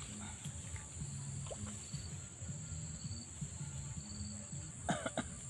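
Steady high-pitched drone of insects, with faint low tones changing in pitch underneath.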